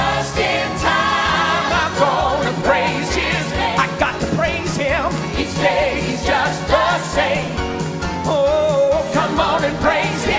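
Gospel song: several voices singing together over instrumental accompaniment with a steady beat.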